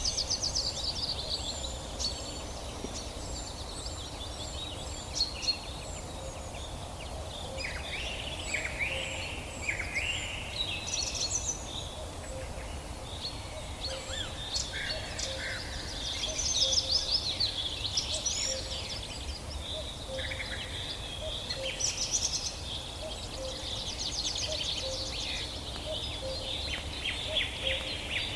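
A chorus of several songbirds singing and calling together in a forest, with overlapping chirps, trills and whistles over a steady low rumble. In the second half a lower note repeats about once a second beneath them.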